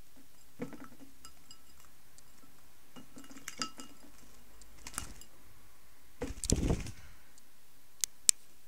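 Rosy-faced lovebird bathing at a glass bowl of water: scattered small splashes and light clinks against the glass, with a louder flurry of flapping and splashing about six and a half seconds in. Two sharp clicks near the end, the second the loudest.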